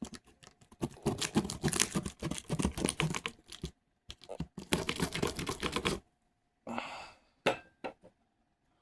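Cardboard shipping box being torn open: two runs of rapid crackling clicks a few seconds each, like packing tape ripping off, then a short rustle and two sharp knocks near the end.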